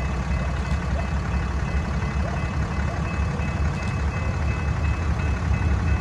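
BNSF diesel-electric freight locomotive rumbling steadily as it creeps toward the listener at low speed, with a faint high tone pulsing on and off above the rumble.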